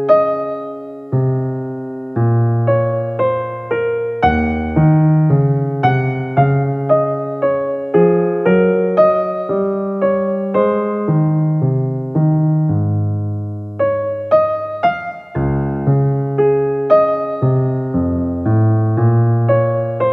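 Background music: a piano playing a slow, gentle piece, each note or chord struck and then fading.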